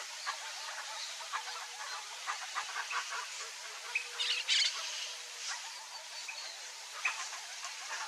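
Birds calling outdoors: many short calls through the whole stretch, with a louder, denser burst of calls about four to five seconds in.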